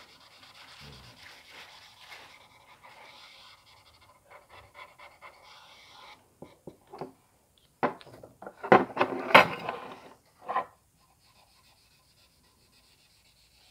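Felt-tip marker pen rubbing along the edge of a steel locomotive frame plate, a faint scratchy rubbing with small ticks. A few clicks follow, then a louder burst of breathy noise about eight seconds in, after which the sound drops almost to nothing.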